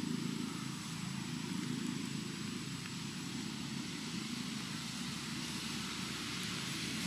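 Steady low rumble with a fainter hiss above it, even throughout with no distinct events.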